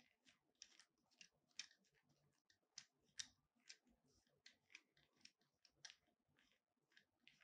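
Faint, irregular small plastic clicks and ticks, about two a second, from the Yunteng video tripod's plastic head and clamp fittings as leather-gloved hands handle and adjust them.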